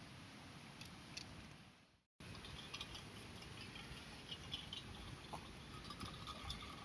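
Faint crackling of burning firewood: scattered small pops and ticks over a low hiss. The sound cuts out completely for a moment about two seconds in, and the crackles come a little more often after that.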